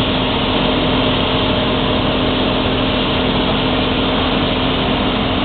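Slingsby Firefly's piston engine and propeller droning steadily, heard from inside the cockpit, with a strong constant hum under a rushing noise.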